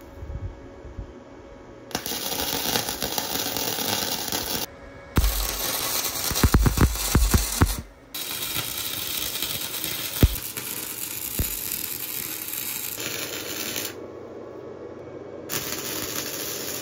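Wire-feed (MIG) welder arc crackling and hissing on steel motor-mount brackets, in several separate runs that start and stop abruptly. A few low thumps in the middle and two sharp knocks a little later.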